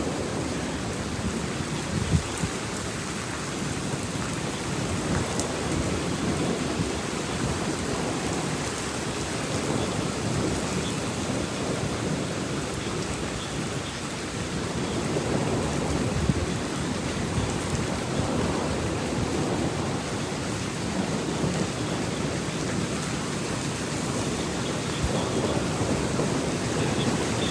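Heavy rain pouring steadily in a thunderstorm, with thunder rumbling low underneath.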